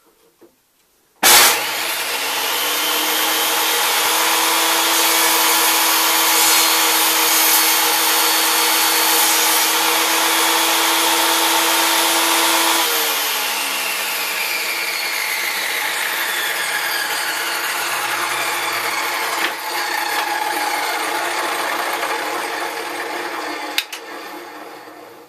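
Table saw switched on about a second in and running steadily at full speed for about eleven seconds, then switched off and coasting down, its pitch falling as it slowly fades out near the end. A couple of light clicks are heard as it winds down.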